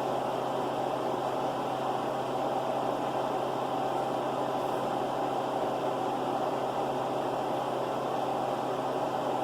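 A steady mechanical hum with an even whirring noise, like a small motor or fan running.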